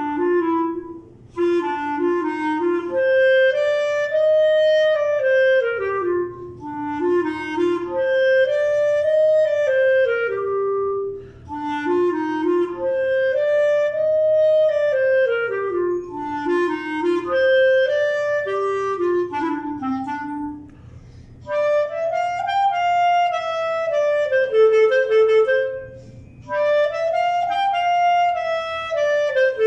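Solo clarinet playing a melody in repeated arching phrases, each climbing and then falling back, with short pauses between phrases.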